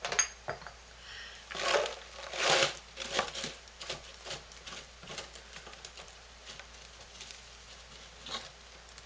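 Clumpy borax powder pouring from a cardboard box into a plastic measuring cup: two louder rushes about two seconds in, then a run of small ticks and rattles as lumps drop in.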